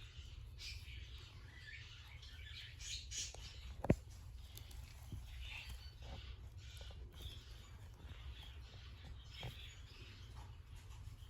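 Faint scattered scratching, rustling and small high chirpy sounds of young kittens moving about and playing, with one sharp click about four seconds in, over a steady low hum.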